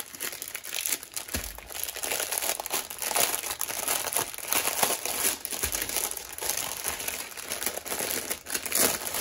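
Clear plastic bag of diamond-painting drill packets crinkling as it is handled and turned over, with two dull bumps, one about a second and a half in and one near six seconds.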